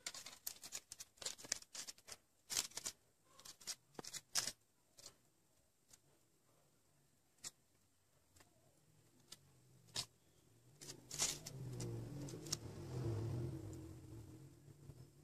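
Crepe paper crinkling and rustling as a paper lily is handled: dense scattered crackles for the first few seconds, thinning out, then a louder, low brushing rustle for a few seconds near the end.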